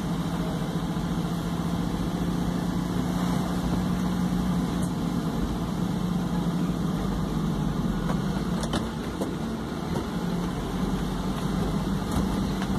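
Car engine and road noise heard from inside the cabin while driving slowly through town streets: a steady low hum under an even rumble.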